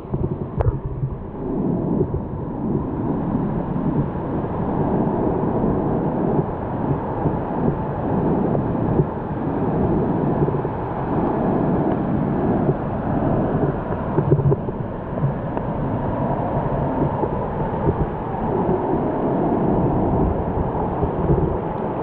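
Water rushing over a small cascading waterfall on rock ledges, a steady low rush of falling and churning water.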